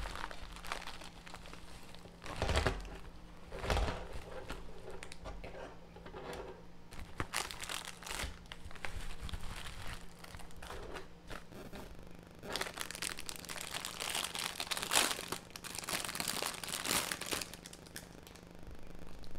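Plastic bubble wrap crinkling and rustling as it is handled and unwrapped by hand. The crinkles come irregularly, with a busier, louder stretch about two-thirds of the way through.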